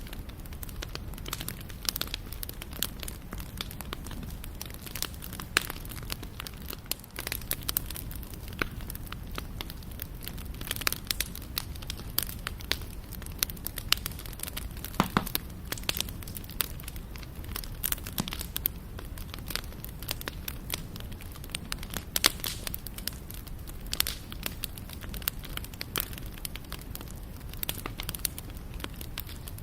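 Wood fire crackling, with many irregular sharp pops and snaps over a low steady rumble of burning.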